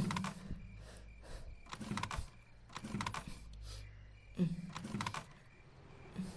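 A run of irregular clicks and knocks, roughly one or two a second, over a low hum.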